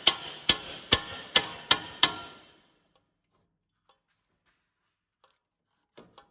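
Hammer blows on a pickle fork driven between the lower ball joint and the steering knuckle, about six sharp ringing metal strikes at two to three a second, stopping about two seconds in. The strikes are forcing the ball joint stud out of the knuckle.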